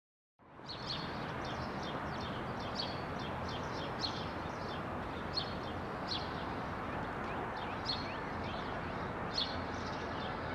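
Small birds chirping in short, high calls every second or so over a steady background hum of outdoor ambience, fading in about half a second in.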